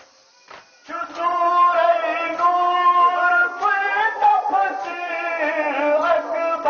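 Voices chanting a Kashmiri nohay, a Muharram lament, starting again after a pause of about a second. Sharp strokes keep an even beat under the chant, a little under two a second, typical of chest-beating (matam) by the mourners.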